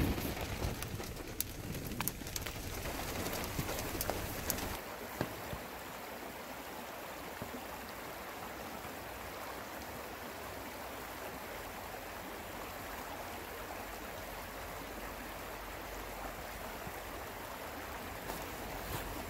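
For about the first five seconds, scattered ticks of raindrops on a car. Then a shallow rocky stream runs over stones with a steady rush of water.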